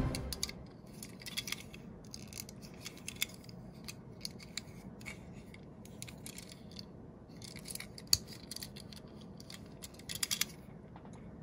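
Light clicks and ticks of die-cast toy fire engines being picked up and turned over in the fingers: small metal-and-plastic handling sounds, with a sharper click about eight seconds in and a quick cluster of clicks near the end.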